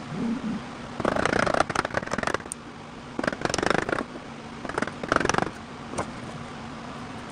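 Three bursts of rasping, scraping noise, each about a second long, with a few light knocks between them.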